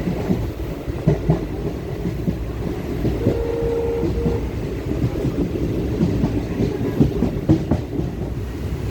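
Passenger train running on the rails: a steady low rumble with irregular clatter of the wheels over the track. A brief steady tone sounds about three seconds in.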